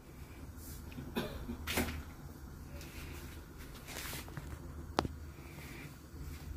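Gas stove control knob being turned to light a burner: soft handling noises, then one sharp click about five seconds in.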